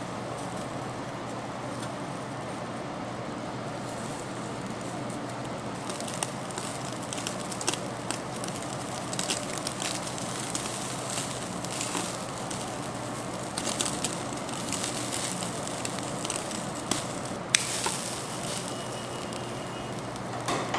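Beef sizzling on a hot grill: a steady hiss with scattered pops and crackles of spitting fat, busier from about six seconds in, with one sharp pop near the end.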